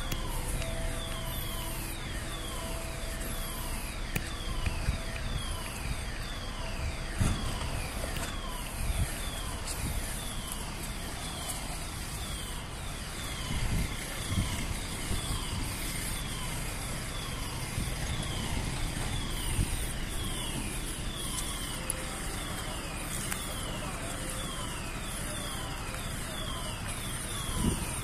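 Building fire alarm sounders going off, a high falling sweep repeated about three times every two seconds, heard from outside the building. Bystanders are talking under a steady low rumble.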